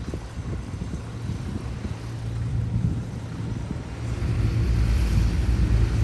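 Heavy diesel engine of earthmoving machinery running with a steady low rumble that grows louder about four seconds in.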